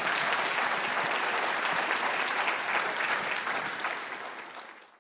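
Audience applauding steadily, then fading out over the last second or so.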